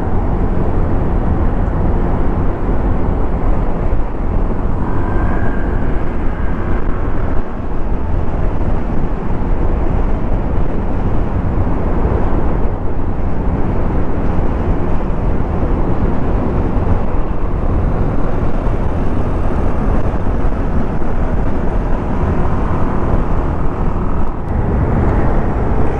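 Steady riding noise from a Honda Click scooter moving through traffic: the single-cylinder engine running at road speed under a constant low rush of wind and road noise on the handlebar-mounted microphone.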